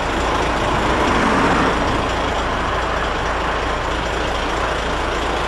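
Heavy truck's diesel engine idling, a steady low rumble with a noisy hiss above it.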